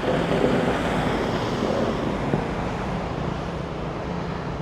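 Wind rushing on the microphone over steady outdoor street noise, with a faint low engine hum.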